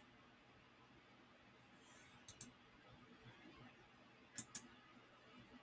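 Near silence broken by two quick pairs of faint computer mouse clicks, about two seconds in and again a little past four seconds.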